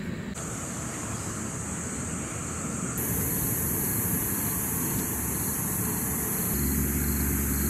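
Steady high-pitched insect drone, with a second, higher drone joining about three seconds in, over a low rumble of wind on the microphone. About six and a half seconds in, a low steady engine hum sets in.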